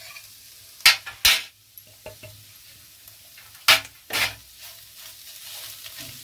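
A wooden spatula stirring dry-fried masala in a nonstick frying pan: two pairs of short, loud strokes against the pan, about a second in and again near four seconds, over a faint sizzle.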